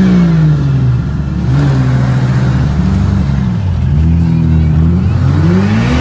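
Jeep Cherokee engine revving up and easing off several times in a row, over a steady low rumble.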